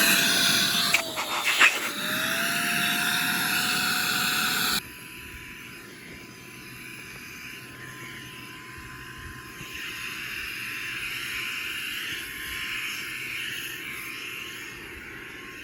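Small battery-powered electric air pump running with a steady motor whine and rushing air while it inflates an inflatable tent. There are a few clicks about a second in. About five seconds in the sound drops sharply quieter, and the whine carries on steady at a higher pitch.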